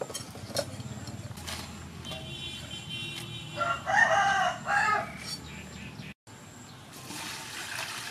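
A rooster crows loudly about four seconds in, a call in two parts. Before it come a few sharp taps of a cleaver cutting greens on a wooden chopping board.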